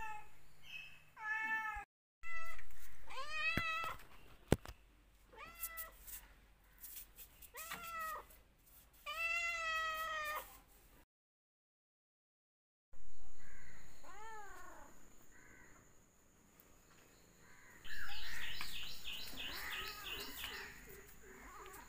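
A domestic cat meowing: a string of drawn-out meows, each rising then falling in pitch, through the first half. After a short break there is one more meow, then a run of quick high chirps near the end.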